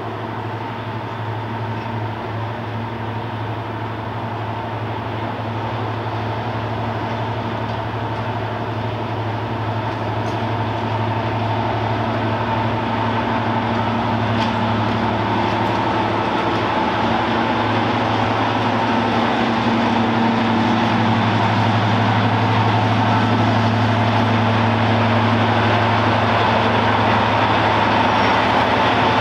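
Class 55 Deltic diesel locomotive's twin Napier Deltic two-stroke engines running as it draws slowly into the platform. A steady drone that grows gradually louder as the locomotive comes closer.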